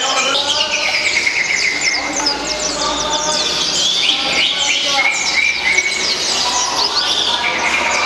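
Many caged songbirds chirping and singing at once: a dense, unbroken chorus of quick, high twittering notes and trills, with voices murmuring underneath.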